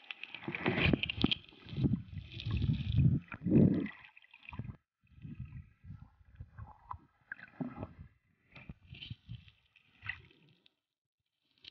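Water sloshing and gurgling around a waterproof compact camera held underwater as a snorkeler kicks with fins, in irregular surges that are strongest in the first four seconds and grow shorter and sparser after.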